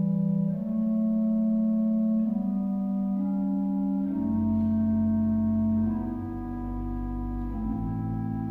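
Church organ playing slow, sustained chords of a chorale prelude, the harmony shifting every second or so. A low bass line comes in about halfway through.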